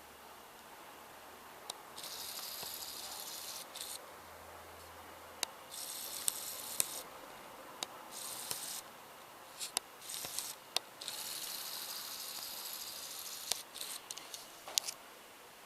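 Four bursts of high-pitched hissing, each a second or two long, separated by short pauses and with sharp clicks in between.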